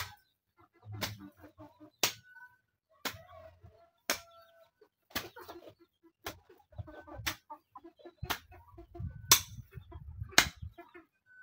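Hoe blade chopping into garden soil, a sharp strike about once a second, with hens clucking between the strikes.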